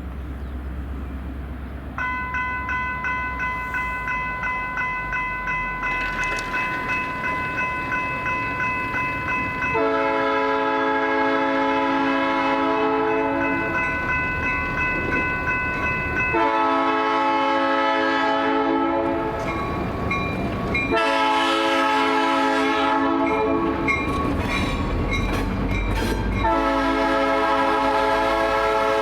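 Grade-crossing warning bell ringing with a steady pulse from about two seconds in. Then a diesel locomotive's air horn sounds four blasts, the crossing signal, the last held on near the end.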